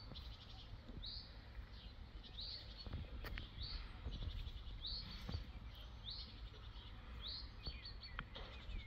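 A small bird repeating a short high call about once a second, each note sweeping up and trailing into a brief rattle, over a steady low rumble.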